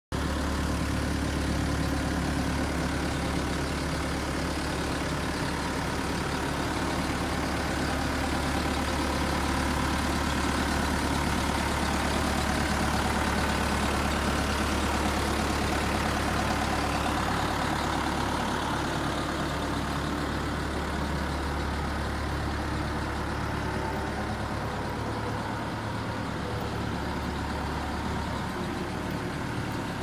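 A Caterpillar 432E backhoe loader's diesel engine running steadily with a low hum, a little louder around the middle.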